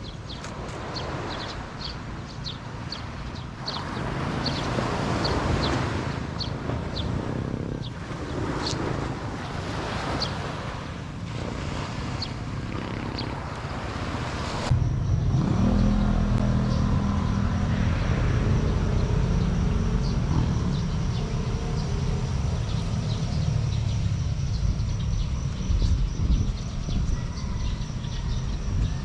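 A road vehicle travelling, with a steady low rumble of engine and road noise. About halfway through the sound changes suddenly to a heavier rumble with a thin steady whine above it.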